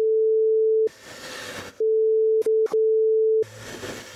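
A steady mid-pitched censor bleep tone, on for about a second, then after a second of crackly team-radio hiss three more bleeps close together, the last short gaps barely breaking it. Hissy radio noise returns near the end.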